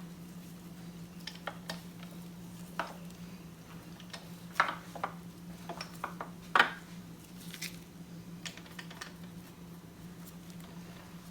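Scattered light metallic clicks and clinks of engine parts and tools being handled on a workbench, the two loudest about four and a half and six and a half seconds in, over a steady low hum.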